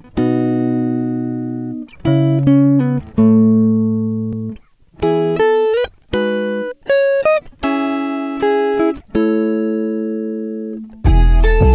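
Music: a series of chords, each struck sharply and left to ring and fade, with a fuller, louder passage with deep bass coming in near the end.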